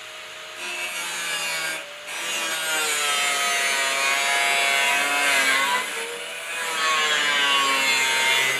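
Angle grinder with a cut-off wheel cutting through car body sheet metal. It starts about half a second in and stops briefly near two seconds, then cuts steadily, its whine sagging and rising again as the wheel bites into the steel.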